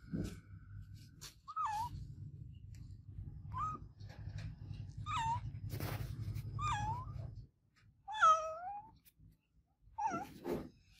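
A cat meowing repeatedly: about seven short meows a second or two apart, each bending down in pitch, the longest and loudest one a little past the middle. A low hum runs under the first meows and stops about two-thirds of the way in.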